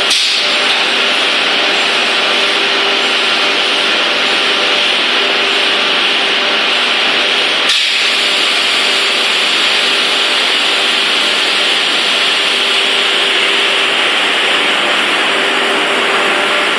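Steady machine noise: a loud, even hiss with a faint hum under it, and a single sharp click about eight seconds in.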